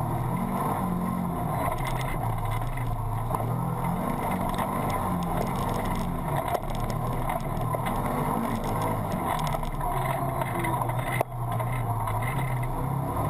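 Can-Am Commander 1000 side-by-side's V-twin engine running steadily under way, its pitch wavering with the throttle. Over it a light clicking comes from the GoPro camera case, which something on the case was rattling against, perhaps because it was loose.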